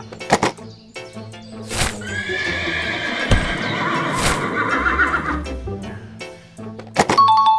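A horse-like whinny over background music, with several sharp knocks. A short steady two-note tone sounds near the end.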